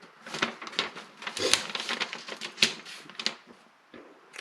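Paper and packaging being handled: a quick, irregular run of crinkles and sharp clicks lasting about three seconds, with one more click near the end.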